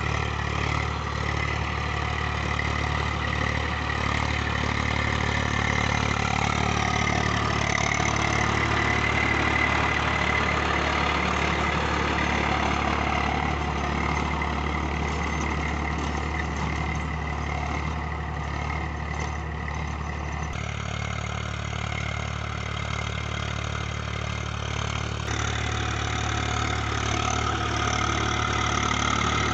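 Eicher 380 tractor's diesel engine running steadily under load while its rear-mounted rotavator churns through dry stubble soil: a steady engine hum under the rasping noise of the tilling blades. The tone shifts abruptly about two-thirds of the way through.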